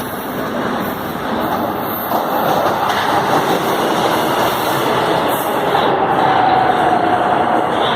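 Metro train running along the track, its rumbling noise growing louder from about two seconds in, with a faint whine sliding slowly lower in pitch in the second half.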